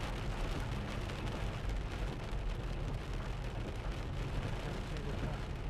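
Land Rover Freelander 2 driving at about 30 mph, heard inside the cabin: a steady low rumble of engine and tyre noise.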